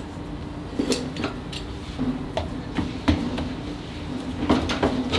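Scattered light knocks and clinks of croissant dough being folded and handled on a dough sheeter's conveyor, over a low steady hum.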